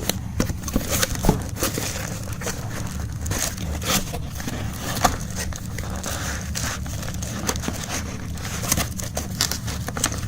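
A package being opened by hand: irregular crinkling and rustling of the wrapping, with scattered sharp clicks.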